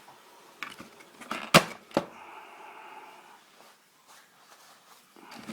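Handling clatter while stripping an old telephone: several sharp clicks and knocks of plastic parts and wiring, the loudest about a second and a half in, followed by a soft rustle as the wiring goes into a bag.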